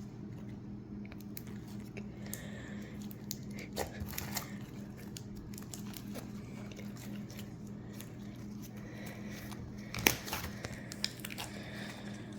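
Butter slime being squished and kneaded by hand as air-dry clay is worked into it, giving small sticky crackles and pops, with one sharper snap about ten seconds in. A steady low hum runs underneath.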